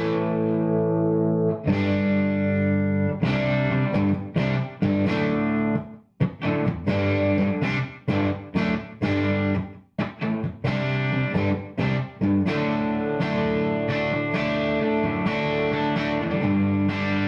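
Electric guitar (Gibson Les Paul) played through a JMI Vox AC30/6 Top Boost piggyback amplifier into a cab loaded with Celestion Alnico Blue speakers. Ringing chords are broken by short rhythmic stops, with two brief breaks about six and ten seconds in.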